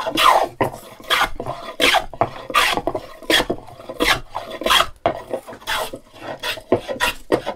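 Hand plane taking shavings off a wooden workpiece: a quick run of short swishing strokes, about ten of them, each lasting a fraction of a second.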